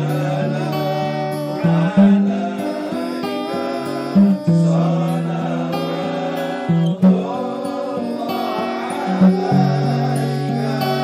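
Music: a wavering sung melody over held low notes and guitar-like plucked-string accompaniment, playing steadily.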